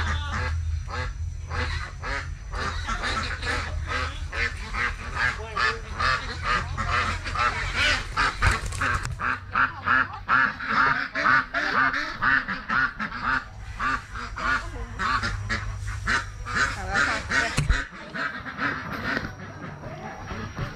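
A flock of ducks quacking continuously, many calls overlapping in a rapid, unbroken chatter.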